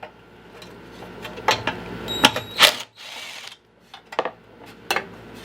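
Hand tool working bolts out of a push mower's engine cover: scattered sharp metal clicks and clinks, loudest a couple of seconds in.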